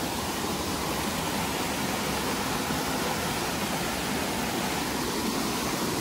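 Small seasonal mountain stream rushing steadily as it tumbles over rocks.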